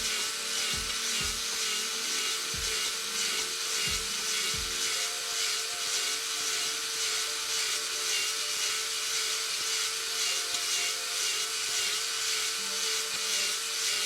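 Drill-driven cylinder hone running in the bore of an LS V8 block: a steady drill whine that wavers slightly, with the abrasive rasping against the cylinder wall.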